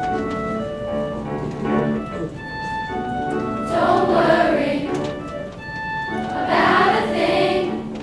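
School children's choir singing with grand piano accompaniment: the piano plays steady chords throughout, and the choir comes in with two louder phrases, about four and about six and a half seconds in.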